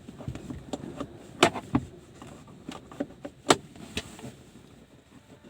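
Irregular metal clicks and knocks of a wrench working on a car's rear seat-belt anchor bolt, with two louder clanks about a second and a half in and again about three and a half seconds in.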